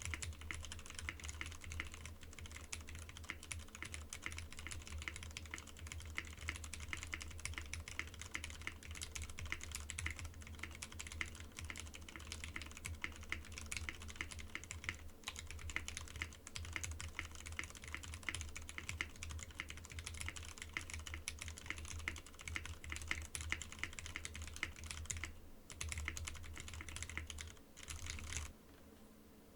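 Continuous typing on an aluminium-plate mechanical keyboard with lubed Cherry MX Hyperglide Red linear switches and doubleshot PBT keycaps. The keystrokes are pretty quiet and poppy, with a little Cherry scratchiness. The typing breaks off briefly twice near the end.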